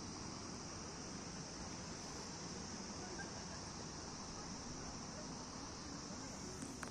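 Insects chirring steadily in one constant high-pitched band, over faint low background noise.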